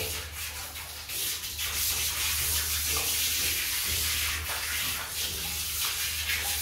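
Water running from a hose and splashing over a dog's wet coat and onto the plastic floor grates as the dog is rinsed, a steady hiss of spray and splatter.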